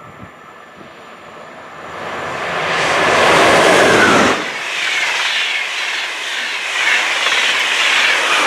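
Deutsche Bahn Intercity train, hauled by a Class 101 electric locomotive, passing at speed: the rush of wheels on rail builds from about two seconds in, is loudest around three to four seconds in, and carries on strongly while the coaches and locomotive go by.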